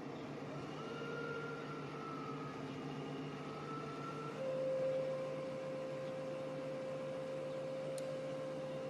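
Excavator running steadily while drilling: a mechanical drone with a hum and a faint wavering whine, joined about four and a half seconds in by a louder steady hydraulic whine.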